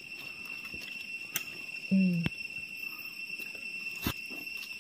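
Insects droning on one steady high pitch, with a few sharp clicks of dry leaves and twigs underfoot and a brief voiced murmur about two seconds in.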